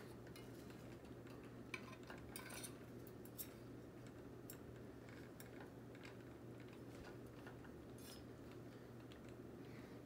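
Hunter Infiniti ceiling fan running on high with a faint steady hum, while its loose switch housing and light kit are handled, giving a few light clicks and taps of plastic and pull chains.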